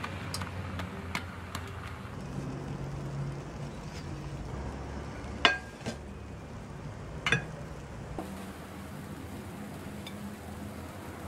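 Kitchen handling sounds: light clicks of a spatula against a frying pan, then two sharp clinks about two seconds apart, the first with a short ring, as the pan is tipped over a ceramic plate to turn out an omelette. A steady low hum runs underneath.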